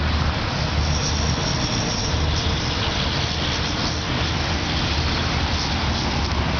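Steady outdoor background noise: a low rumble with an even hiss throughout.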